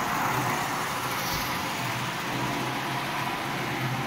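Marx tinplate toy diesel locomotive running steadily around three-rail track with its train: a steady electric motor hum and the rumble of wheels on tin rails. It is running at less than half power.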